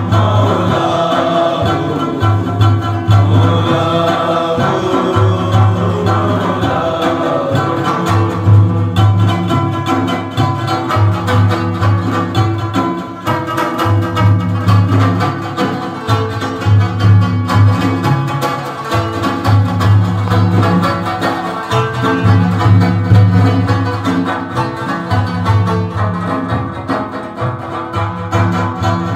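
Sufi devotional music: an Afghan rubab plucked over a steady repeating beat on a large frame drum, with a man's voice singing in places.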